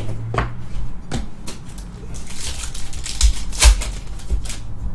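Trading cards clicking and sliding against each other in the hand, then a foil trading-card pack crinkling and crackling as it is handled, with the loudest crackle about three and a half seconds in.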